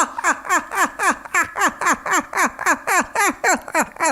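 A man's high-pitched, maniacal clown giggle: a long, even run of short 'hee' notes, each dropping in pitch, about four or five a second.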